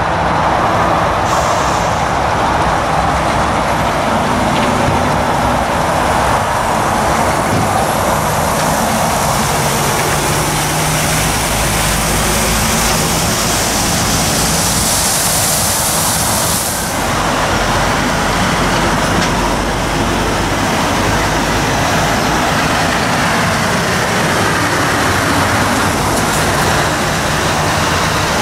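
Diesel engines of articulated lorries running at low speed as they pull slowly past close by, with a loud hiss of air building about halfway through and cutting off suddenly.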